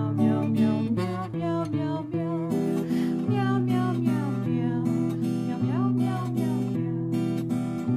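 Background music with a strummed acoustic guitar and a moving melody over held notes.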